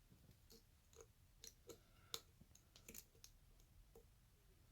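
Faint, irregular clicks of a lock pick working the pins of a challenge lock under light tension, with one sharper click about two seconds in.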